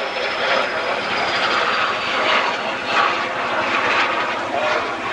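BAC Jet Provost's Armstrong Siddeley Viper turbojet flying past: a loud, steady jet rush with a thin, high whistle that slowly falls in pitch as the aircraft goes by.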